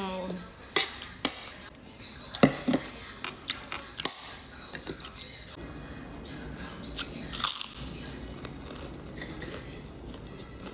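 Close-miked chewing and crunching of a mouthful of scrambled egg, with several sharp clicks and crunches scattered through it, the loudest a little over two seconds in and again about seven and a half seconds in.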